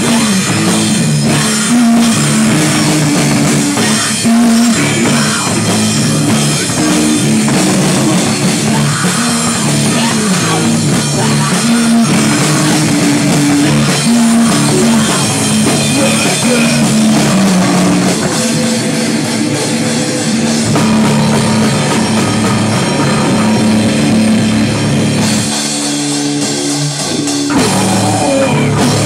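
Live screamo band playing loud: a drum kit, distorted electric guitars and bass guitar, with a vocalist screaming into a microphone. The lowest notes drop out briefly near the end.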